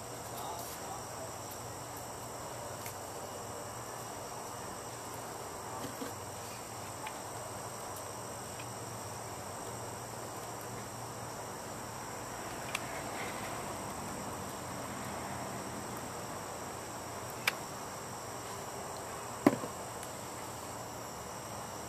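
Steady high-pitched chirring of insects, with a few sharp clicks and taps from handling a hot glue gun and small fittings; the loudest click comes near the end, as the glue gun is set down.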